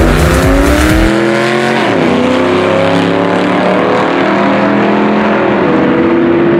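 Car engine under hard acceleration, as on a drag-strip pass. Its pitch climbs, drops sharply at a gear change about two seconds in, climbs again, and drops at another shift near the end.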